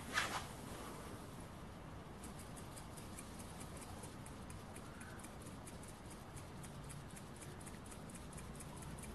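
Tiny brass single-acting model beam steam engine running on the heat of a small mosquito-repellent candle, giving a quick, even, faint ticking that starts about two seconds in. A short burst of noise comes at the very start.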